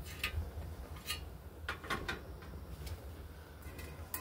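Metal pot-support grate being fitted onto a portable butane camp stove: several light metal clicks and clinks spread over a few seconds.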